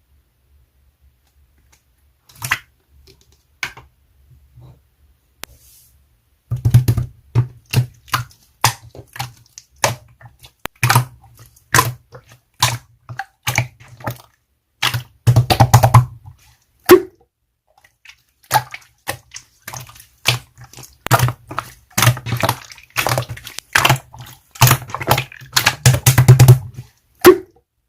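Slime being pressed, squished and folded by hand, giving wet, crisp clicks and pops in quick irregular runs. A few scattered pops come first, and the handling turns steady and busy about six seconds in.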